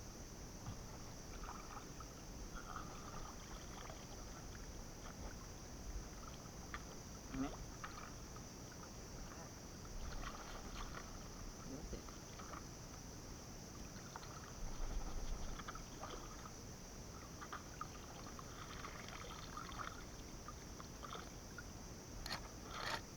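Water sloshing and splashing in shallow river water, with scattered light knocks and clicks, over a steady high-pitched hiss. A louder splashy stretch comes about two-thirds of the way through, and a quick cluster of knocks comes near the end.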